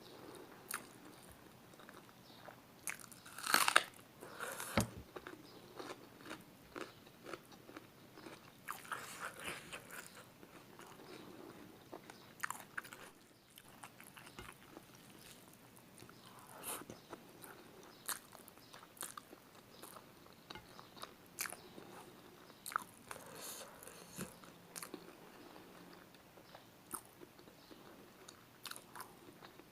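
Close-up eating of spicy chicken feet: irregular biting, crunching and chewing, with the loudest crunches about four seconds in.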